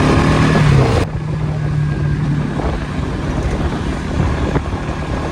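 Motorcycle engine running steadily while riding, with wind noise on the microphone. The wind hiss drops away abruptly about a second in.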